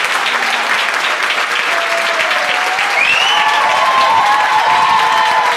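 Audience applauding, with dense clapping throughout. Voices cheering and whooping over it grow stronger from about three seconds in, including one rising whoop.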